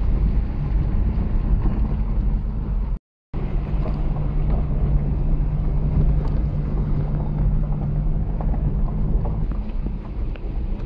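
Car driving on a rough dirt road, heard from inside the cabin: a steady low rumble of engine and tyres with a droning engine note. It cuts out completely for a moment about three seconds in.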